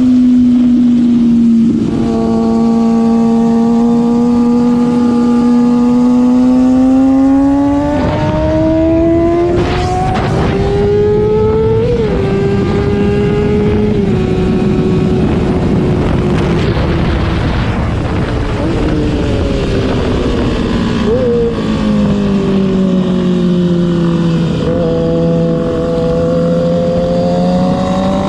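Sport motorcycle engine heard onboard at a track. It accelerates hard up through the gears, with shifts around 8 to 12 seconds in. It then falls in pitch as the bike brakes, with short downshift blips a little past 20 seconds, and pulls again near the end. Wind rush rises with speed.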